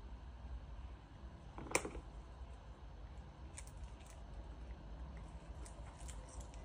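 A sharp click or knock about two seconds in, then scattered light clicks and taps over a low, steady room hum.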